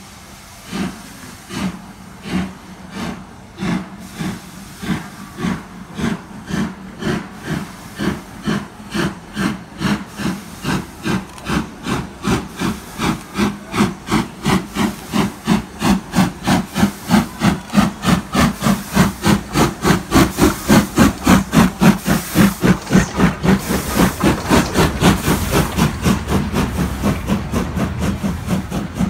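LMS Jubilee class 45562 Alberta, a three-cylinder 4-6-0 steam locomotive, pulling away from a stand. Its exhaust chuffs start about a second apart and quicken steadily to about three a second, growing louder as it draws near. Near the end the engine passes and the beats give way to a steady rumble of the coaches.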